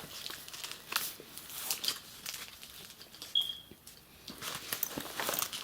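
Fabric camera sling backpack being handled: irregular rustling with scattered soft clicks and knocks, and one brief high squeak a little past the middle.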